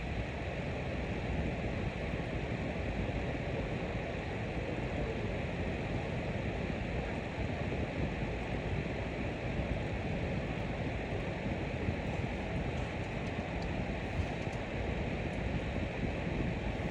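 A fan running, making a steady, even rushing noise that holds the same level and pitch throughout.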